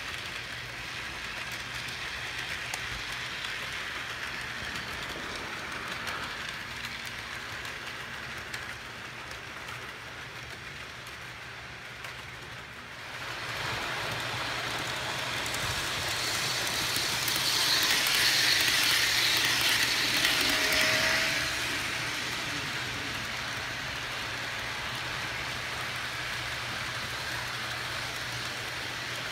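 HO scale model freight train rolling over the layout's track: a steady whir of small metal wheels on the rails over a steady low hum. About halfway through the sound rises, and it is loudest for several seconds as the locomotive and cars pass close, then it settles back.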